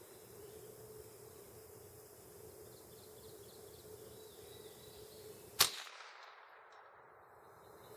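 A single shot from a Ruger 10/22 .22 rifle about five and a half seconds in: one sharp crack with a short decaying tail.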